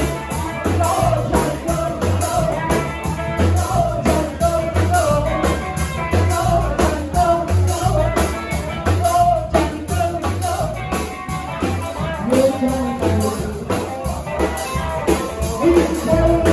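Rock and roll band playing live, with a singer's voice over a steady beat and bass.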